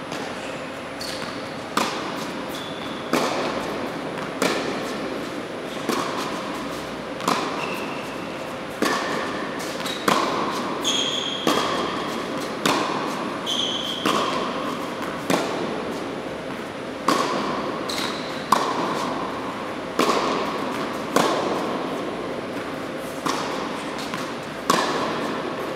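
Tennis balls struck by rackets and bouncing on an indoor hard court during a rally: a sharp pop about every one and a half seconds, echoing in the hall, with a few short high squeaks of shoes on the court.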